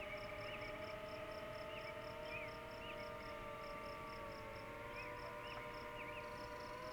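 Evening outdoor ambience: an insect chirping in a steady pulse of about four a second, scattered short bird chirps, and a steady hum whose pitch drifts slowly.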